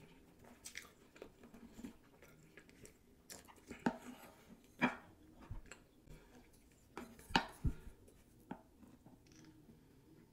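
Close-miked eating sounds: soft chewing of sushi with a few sharp clicks, then loud swallows while drinking water from a glass mug.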